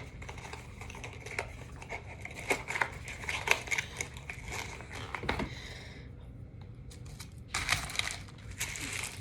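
Packaging crinkling and rustling as it is handled, with quick crackly clicks, stopping about six seconds in and starting again near the end.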